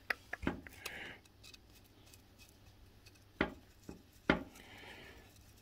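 A flat screwdriver working small screws out of a cast-iron lathe slide on a steel bench: a couple of light clicks, then three sharp metal knocks a little past halfway, as tool and parts are handled.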